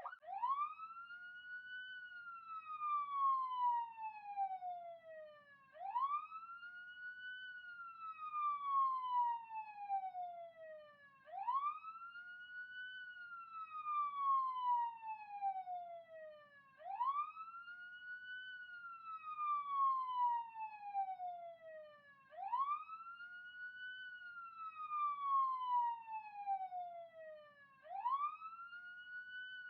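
Police siren sound effect in wail mode: each cycle rises quickly in pitch and then falls slowly, repeating about every five and a half seconds. It switches over from a fast yelp right at the start.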